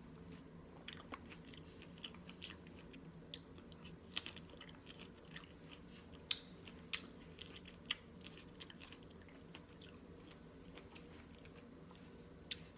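Close-up mouth sounds of strawberries dipped in vanilla yogurt being chewed: a string of wet smacks and short clicks at an uneven pace, over a faint steady hum.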